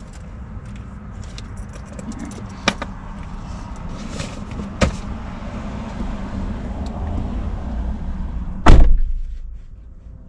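A few light clicks and handling knocks around a car, then one loud slam of a car door shutting near the end.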